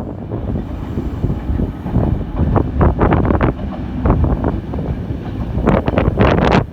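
A train passing along the track: a steady rumble, with two clusters of sharp wheel clicks over rail joints, one around the middle and one near the end. Wind buffets the microphone.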